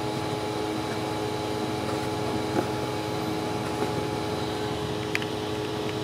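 Steady hum of small electric fans running, with a few faint ticks.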